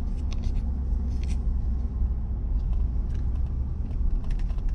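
Engine and road noise inside a moving pickup truck's cab: a steady low rumble, with a few light ticks.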